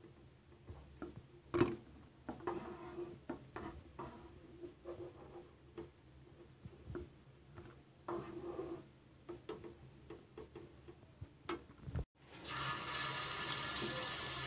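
A slotted steel spoon clicking and scraping against a nonstick kadai as fried batter fritters are lifted out of the oil and set on a plate, with faint bursts of sizzling. About twelve seconds in the sound cuts to a steady sizzle of fresh batter deep-frying in hot oil.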